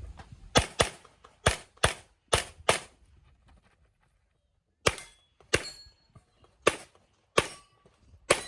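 Handgun shots fired in quick succession during a practical-shooting (IPSC) course of fire: about eleven shots, six in rapid pairs and strings over the first three seconds, then a pause of about two seconds, then five more at a slower pace.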